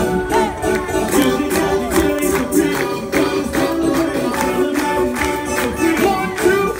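Loud dance music with a steady beat, about two beats a second, and a sung vocal line.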